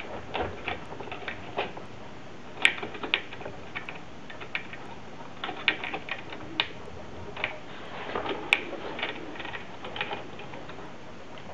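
Plastic clicks and scraping of a CPU cooler's mounting clip being pushed down and worked into place on the motherboard, with irregular clicks and a few sharper snaps.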